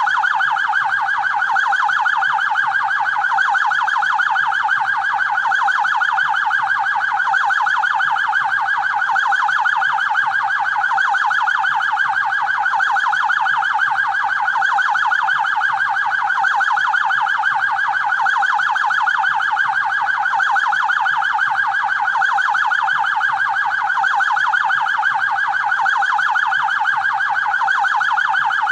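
Police siren sounding in a fast, continuous warble, its pitch sweeping up and down several times a second at a steady level.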